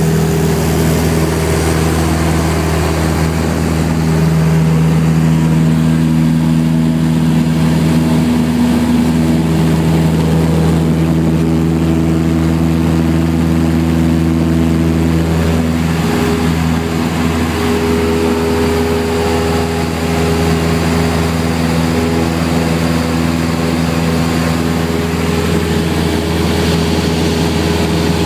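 Cessna 172's piston engine and propeller heard from inside the cabin, running loud and steady at takeoff power through the takeoff roll and the climb-out. It gets a little louder about four seconds in as full power comes on, and its tone shifts slightly about halfway through.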